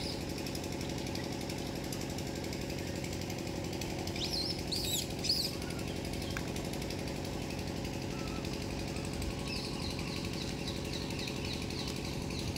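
A motor runs steadily with a fast, even pulse. A few sharp high chirps come about four to five seconds in, and fainter quick chirps near the end.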